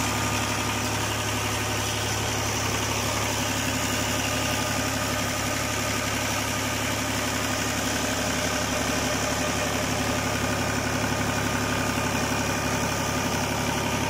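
Diesel engine of a 2006 New Holland Ghazi 55 hp tractor running steadily at constant speed, driving a tubewell bore pump through a belt pulley.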